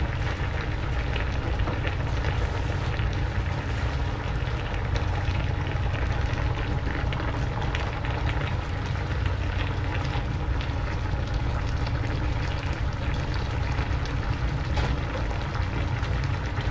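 Pan of grouper head and petchay simmering: a steady, crackling bubble and sizzle over a continuous low rumble.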